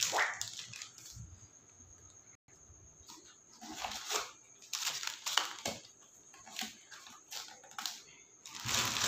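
Plastic wrap and cardboard packing rustling and crinkling in short, irregular bursts as parts are handled inside the box.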